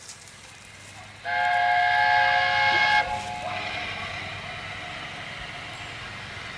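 Steam locomotive whistle blown once for just under two seconds, several steady notes sounding together and cutting off sharply, followed by a steady hiss.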